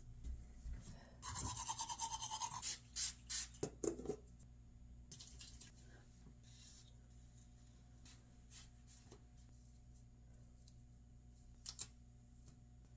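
Fabric rustling and scraping as a top is pulled off and a sports bra put on, with a few quick knocks, over about the first four seconds. After that only a faint steady hum and a couple of small clicks.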